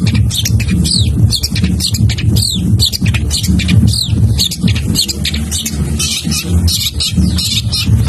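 Long-tailed shrike (cendet) singing a fast, unbroken stream of high chattering notes and short falling whistles, rich in mimicked phrases, with a steady low rumble underneath.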